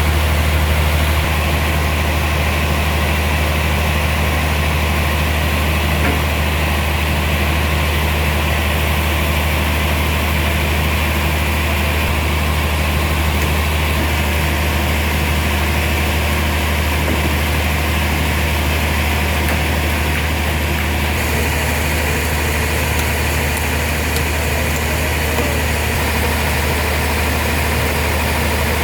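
Sawmill machinery running steadily: a constant, loud low hum with no cutting strikes or changes in pitch.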